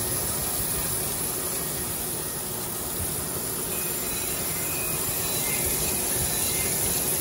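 Crankshaft grinder's wheel grinding a main journal of a Buick 3.8 V6 crankshaft under flowing coolant: a steady grinding hiss over a faint machine hum. The journal is being reground 0.010" undersize to clean up wear.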